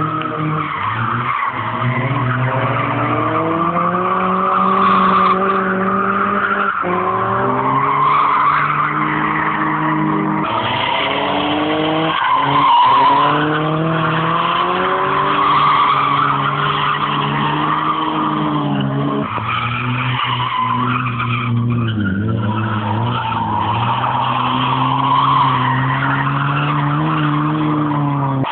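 Drift car sliding with its tyres squealing and its engine revving up and down in repeated pulls. The engine note drops away briefly every few seconds between pulls.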